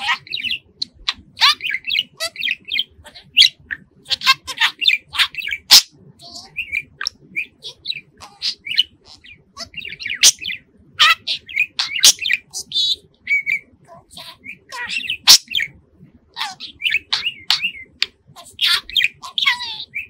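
Budgerigar chirping and warbling: a fast, near-continuous string of short, high chirps and squawks with brief pauses, and a few sharp clicks.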